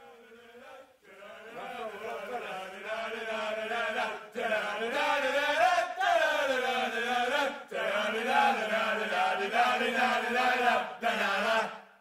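A chanted vocal in a low, droning, mantra-like line. It fades in, then goes on in phrases broken by brief pauses.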